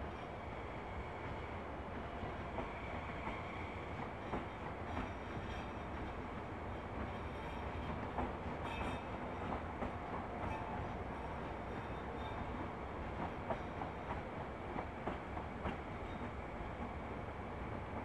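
ETR 1000 Frecciarossa high-speed electric train rolling slowly out of the station, a steady rumble with irregular wheel clicks over the track joints.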